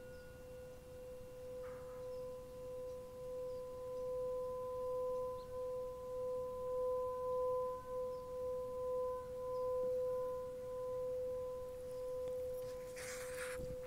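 A sustained ringing sound-healing tone, struck once and held, with a fainter overtone an octave above; its loudness gently swells and wavers. A brief rustle of noise comes near the end.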